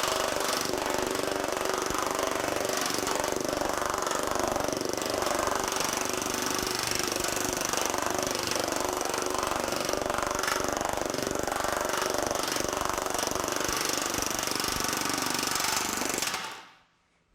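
TM Technologies pneumatic power hammer running with shrinking dies, rapidly hammering 20-gauge sheet steel in a continuous rattle. It stops abruptly near the end.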